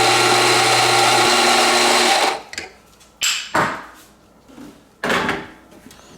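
Rancilio Rocky burr coffee grinder running, its motor humming steadily as it grinds beans, then stopping a little over two seconds in. A few short knocks and clatters follow.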